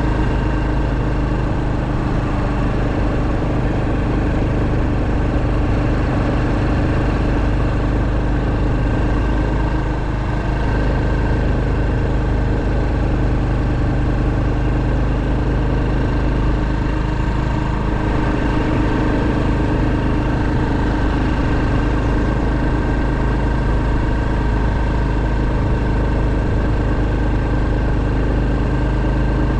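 Honda Super Cub 110's small single-cylinder four-stroke engine running at a steady pace while the motorcycle is ridden, its drone holding an even pitch with a constant low rumble underneath.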